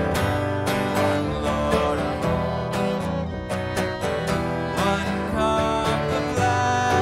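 Music led by acoustic guitar, with frequent plucked and strummed notes over sustained chords.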